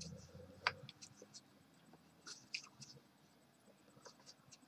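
Faint scratching and small clicks of a screwdriver working at a small screw that will not come out, with one sharper click less than a second in.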